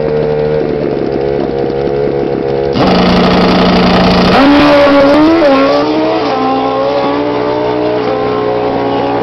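Sport motorcycle engine revving at a drag strip start line, then jumping to full throttle about three seconds in as the bike launches. Its pitch climbs and steps through gear changes, then eases as it pulls away down the track.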